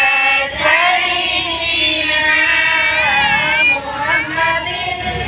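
Children and women singing together, with long held notes.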